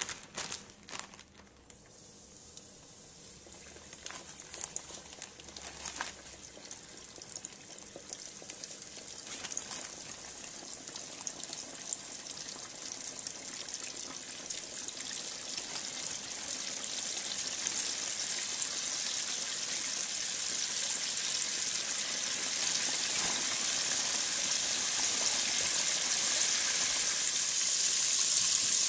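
Battered fish strips deep-frying in hot oil: a steady crackling sizzle that grows steadily louder.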